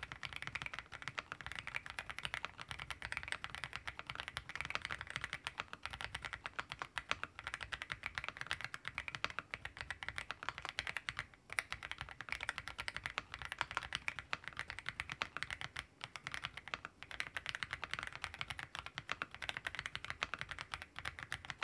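AULA F87Pro mechanical keyboard with Graywood V4 switches being typed on fast and continuously: a dense stream of keystroke clacks, briefly pausing a couple of times. The switches give a soft, rounded 'pogak-pogak' clack.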